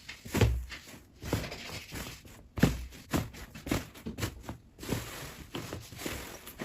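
Slime being squeezed and poked by hand: a series of irregular soft squelches and pops, roughly one or two a second.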